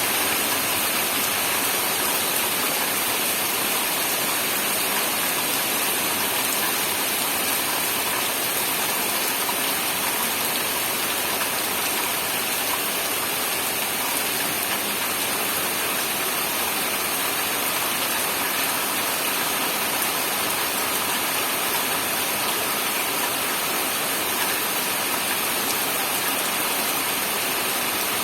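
Steady heavy rain, a constant even hiss without individual drops standing out.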